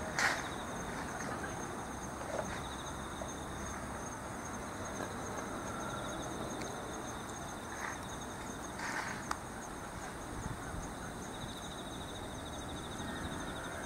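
Insects chirring steadily in several high, finely pulsed trills, with a few brief knocks, the clearest right at the start and around nine seconds in.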